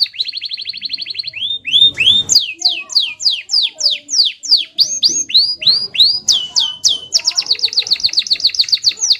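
Domestic canary singing: a fast rolling trill, then a run of slower sweeping whistled notes, two or three a second, then a fast trill again near the end.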